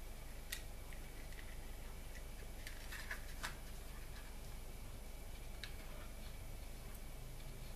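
Small metal clicks and scrapes of a little key tool turning the screws that fix a 2.5-inch hard disk into a metal HDD caddy: one click about half a second in, a cluster of clicks around three seconds, another near six seconds. A faint steady hum and hiss lies underneath.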